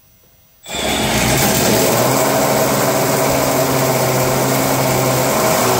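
Scale-model V12 aircraft engine running on a test rig, driving its propeller. The sound comes in suddenly about half a second in and then holds a steady, even pitch.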